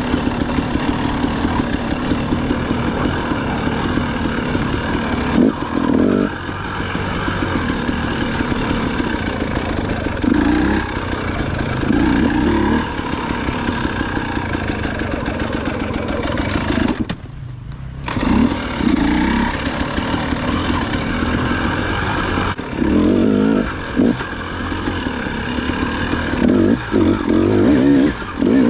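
Dirt bike engine ridden along a trail, revving up and down as the throttle is opened and closed. The note drops sharply for about a second around two-thirds of the way through, as the throttle shuts, then picks up again.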